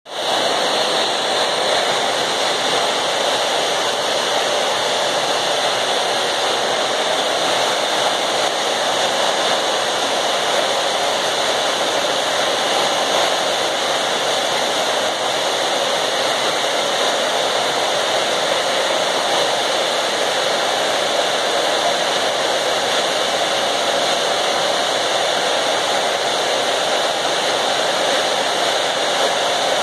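Oil-fired boiler furnace burning, its oil-gun burner lit: a loud, steady rushing noise that does not change.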